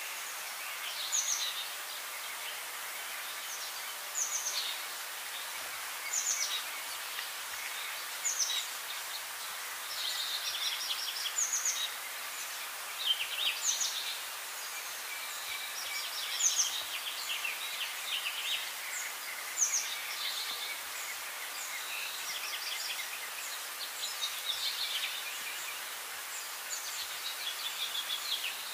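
Birds calling outdoors: short, high chirping phrases repeated every two or three seconds over a steady background hiss.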